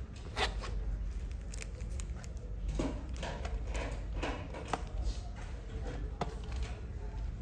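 Scattered light clicks and taps of a plastic wall clock case being turned over and its hands being pressed onto the quartz movement's spindle, over a steady low hum.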